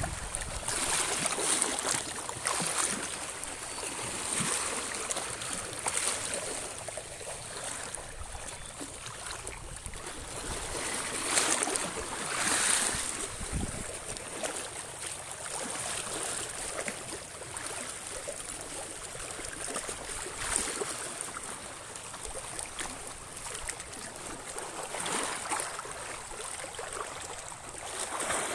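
Small sea waves washing and splashing over rough shoreline rocks, rising and falling every few seconds, with a louder surge about twelve seconds in.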